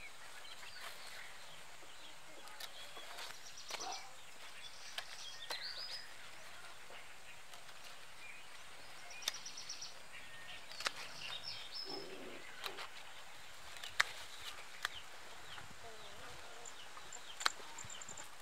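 Pruning shears snipping okra pods from the stalks: several sharp clicks, mostly in the second half. Birds chirp in short high trills throughout, over a steady outdoor hiss.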